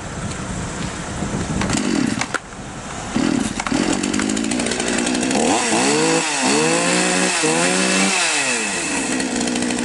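Patriot 5220 two-stroke chainsaw being pull-started with its newly replaced starter cord. It catches about three seconds in and runs, and is revved up and down a few times in quick succession near the middle before settling back.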